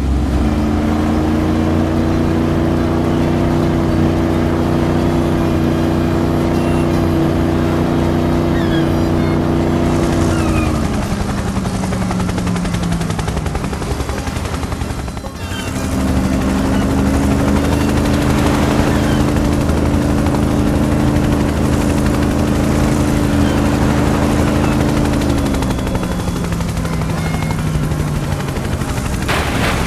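A vehicle engine runs with a steady hum, then winds down in pitch. After a brief break about halfway through, the same steady run and winding down come again.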